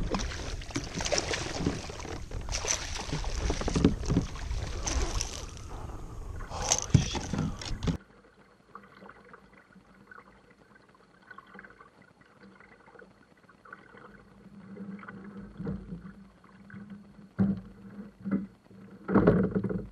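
Loud water splashing and sloshing close beside a kayak, with knocks against the hull, as a hooked striped bass swirls at the surface. The sound cuts off suddenly about 8 seconds in, giving way to quiet kayak paddle strokes with a few louder splashes near the end.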